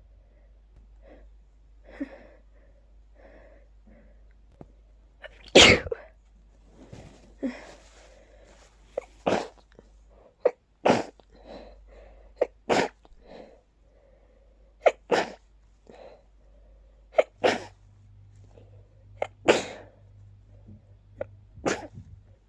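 A person sneezing over and over in quick succession, about ten sharp sneezes, the loudest about five seconds in: an allergic sneezing fit set off by pollen.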